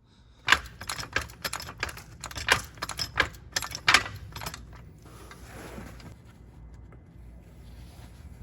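A quick run of sharp metallic clicks and clatter of tools and parts being handled, lasting about four seconds, followed by a brief soft scraping rustle.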